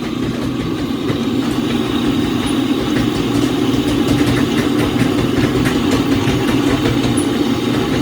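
Steady drone of machinery running in a forging shop, with a few faint, scattered clicks and taps.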